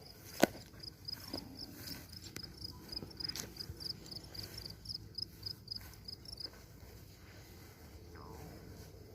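Cricket chirping in a steady, high-pitched run of about four chirps a second, stopping about six and a half seconds in. A single sharp click sounds just before the chirping begins.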